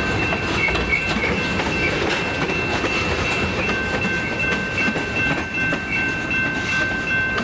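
Austin Western Railroad freight train rolling slowly by, its wheels clacking over the rail joints under a steady rumble. A steady high-pitched tone runs over it, and a second one comes in about four seconds in.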